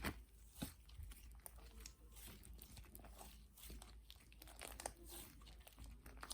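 Mango slime being squished and stretched by hand, giving a faint, irregular stream of small crackles and pops.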